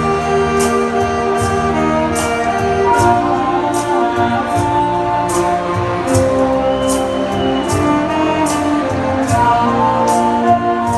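Saxophone ensemble playing a slow melody in long held notes over a steady percussion beat of about one stroke every 0.8 seconds.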